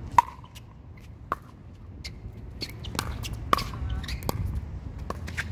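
Pickleball rally: a series of sharp pops from paddles striking the hard plastic ball, about six at uneven intervals, the loudest just after the start.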